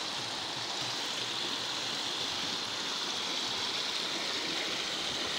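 A stream flowing steadily, an even, unbroken rush of water.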